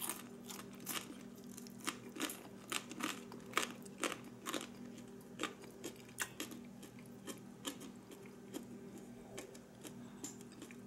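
A person chewing a piece of fried okra close to the microphone: a run of crisp crunches, about two a second, thinning out in the later part.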